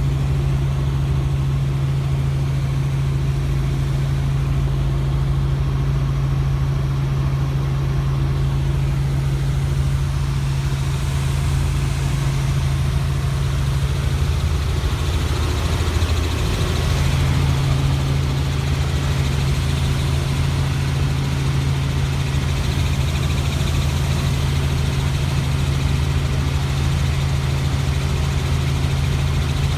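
Helicopter running steadily, with a strong constant low hum over a rumble. The hum wavers briefly about halfway through.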